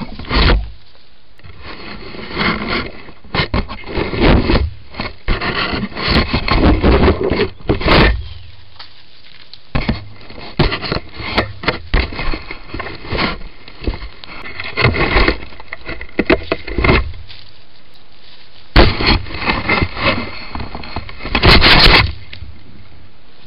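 Handling noise on a plastic camera trap's built-in microphone as langur monkeys grab, push and turn it: fur and hands scrape across the housing with irregular bumps and knocks. The loudest knocks come about three-quarters of the way through and again near the end.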